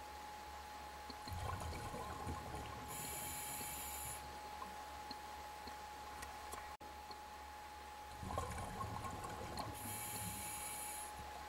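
A scuba diver breathing through a regulator underwater: a stretch of bubbling from an exhalation, then the hiss of an inhalation, twice, about seven seconds apart. A faint steady tone runs underneath.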